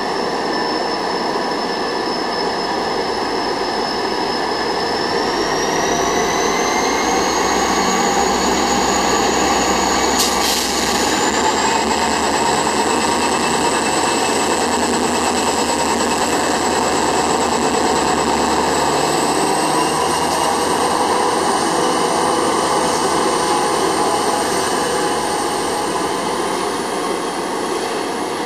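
Korail diesel-electric locomotive hauling a Mugunghwa passenger train away from the platform: steady engine and rolling-stock noise with a high whine that steps up in pitch several times as the train gathers speed, and a brief hiss about ten seconds in.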